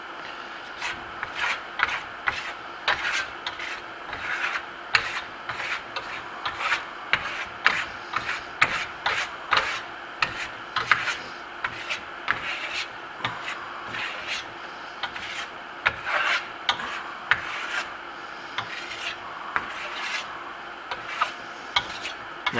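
Steel trowel scraping over dry Grasello Venetian plaster in a steady series of short strokes, spreading gold mica wax across the surface.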